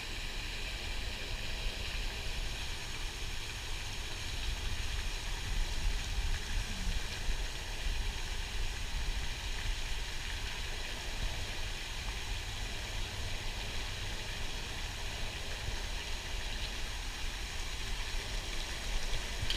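Wind on the microphone: a steady, fluctuating low rumble with an even hiss above it.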